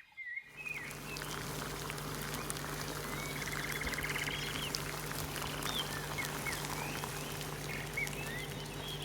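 Birds chirping and calling in many short rising and falling notes, with a quick chattering trill a few seconds in, over a steady low hum and an even hiss.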